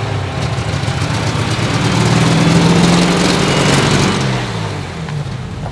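Old truck's engine running just after starting, revving up and growing louder about two to three seconds in, then easing off near the end.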